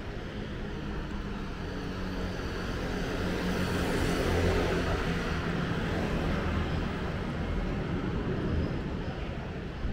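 City street traffic, with one vehicle's engine swelling to a peak about four seconds in as it passes, then fading.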